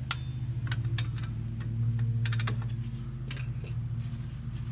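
Irregular light metallic clicks from a drum brake's star-wheel adjuster being turned to tighten the brake shoes, over a steady low hum.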